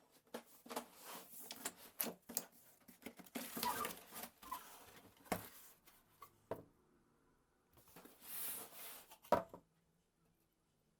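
Unboxing sounds: irregular rustles, taps and small knocks of a box and its packaging being handled, with a longer rustle about eight seconds in.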